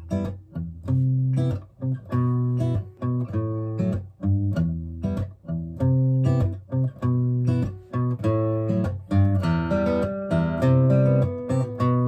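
Acoustic guitar played solo in a hybrid-picked pattern of bass notes and chords, in repeating phrases with short breaks between them, growing fuller with higher notes about three-quarters of the way in.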